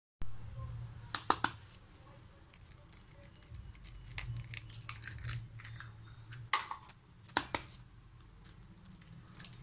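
Two raw eggs cracked over a ceramic plate in turn: a few sharp taps of shell on the rim about a second in and again past halfway, with softer crackling of shell as each is pulled open.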